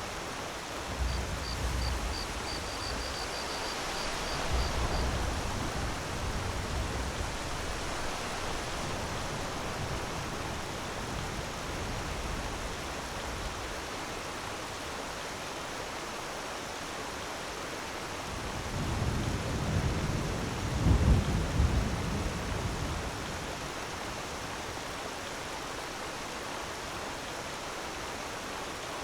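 Steady rushing of a waterfall. Deep rumbles swell up twice, a second or so in and more strongly about two-thirds of the way through. A short run of high ticks sounds near the start.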